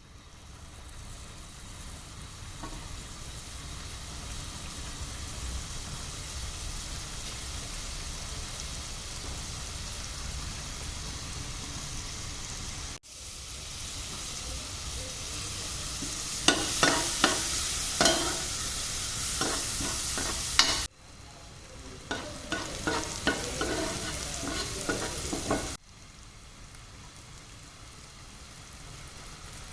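Food sizzling in a frying pan, with a utensil clinking and scraping against the pan in short runs past the middle. The sizzle breaks off abruptly and starts again a few times.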